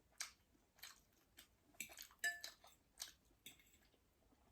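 Faint, scattered clinks and taps of a metal spoon and fork against a bowl, about nine small knocks, one of them ringing briefly about halfway through.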